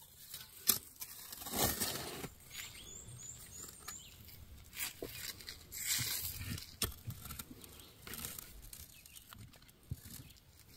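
Gloved hand scraping and crumbling loose clay soil and rock chips while digging out quartz crystals: irregular rustles, swishes and small clicks, with one sharper click under a second in.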